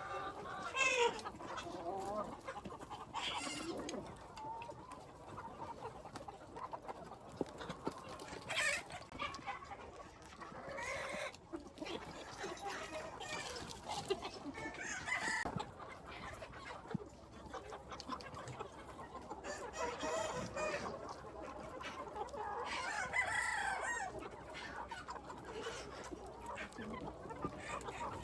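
A flock of free-range chickens clucking and calling on and off, with a rooster crowing.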